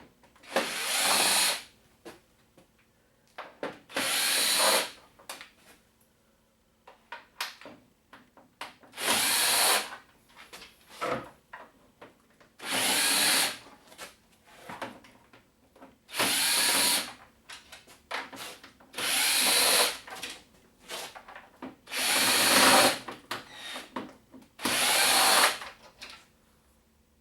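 An electric screwdriver running in short spurts of about a second each, about eight times, as it backs screws out of a plastic plasma-TV back cover. Small clicks and knocks of screws and handling fall in the gaps between runs.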